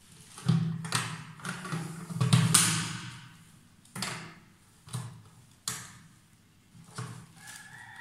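Knocks and clicks of a chrome dual-flush push-button plate being handled, snapped onto its concealed-cistern frame and pressed. The loudest cluster comes in the first few seconds, then there are single sharp knocks about a second apart.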